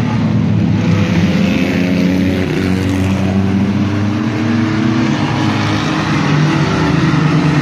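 A field of mini-truck race trucks running together around a short oval. Several engines are heard at once, their pitches drifting up and down as the pack goes through the turn.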